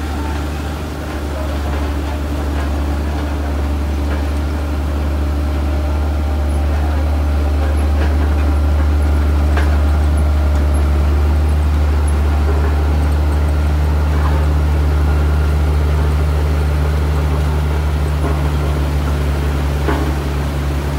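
Komatsu GD525A motor grader's diesel engine running steadily under load with a low drone as the grader works, its blade pushing a windrow of soil.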